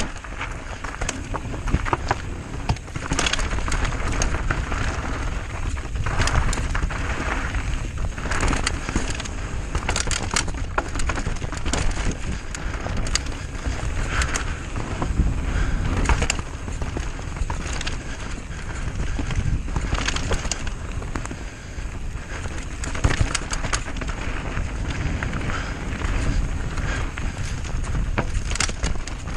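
Mountain bike descending a dirt trail: tyres rolling over dirt and stones, with the bike rattling and clattering over bumps. Wind rumbles on the microphone.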